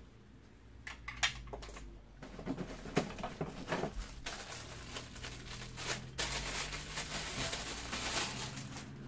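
Packaging being handled: rustling of plastic and cardboard with irregular clicks and knocks as vacuum parts are lifted out of the box, starting about a second in.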